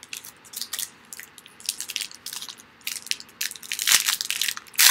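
Trading-card pack wrapper crinkling and crackling as it is handled and opened. The irregular crackles grow denser and louder near the end.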